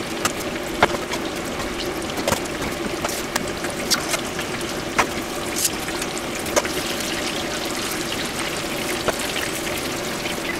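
Breaded shrimp deep-frying in a pot of hot oil: a steady sizzle with scattered sharp pops, over a faint steady hum.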